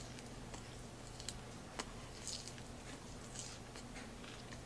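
A person chewing a mouthful of chicken and spinach salad: soft wet mouth sounds and a few crisp clicks spread a second or so apart, over a low steady hum.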